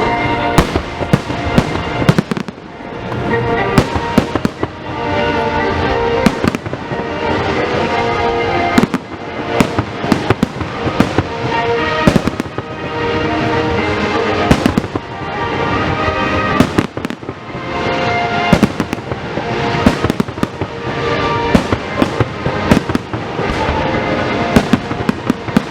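Fireworks bursting: many sharp bangs and crackles, some single and some in rapid clusters, over music that plays throughout.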